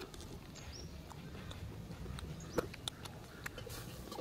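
A person chewing a bite of raw green guava: a few crisp crunches and mouth clicks, scattered and mostly in the second half, over a faint low hum.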